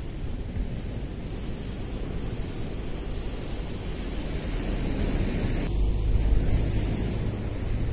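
Wind blowing on the microphone over a steady rush of surf, with a strong low wind rumble coming in suddenly about six seconds in.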